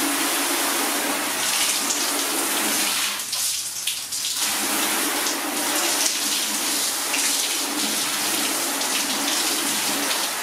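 Garden hose running a stream of water onto a car bonnet: a steady rushing splash that thins briefly about three seconds in.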